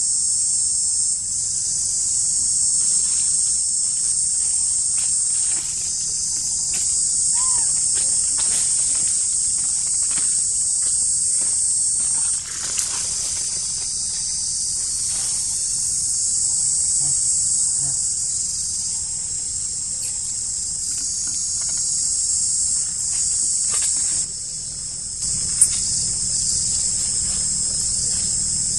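Dense, steady, high-pitched chorus of forest insects that swells and eases every few seconds, with faint clicks and rustles underneath.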